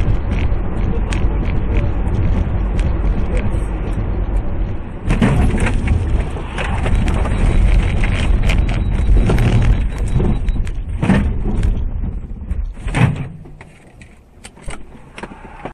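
Car cabin noise of tyres on a wet highway, heard from inside the car. From about five seconds in it grows louder, with knocks and thumps, as the car aquaplanes and slides sideways. Near the end it drops away sharply as the car slows to a stop.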